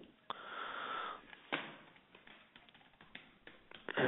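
Faint computer keyboard keystrokes as a password is typed, a few scattered clicks, with a soft breathy hiss lasting about a second near the start.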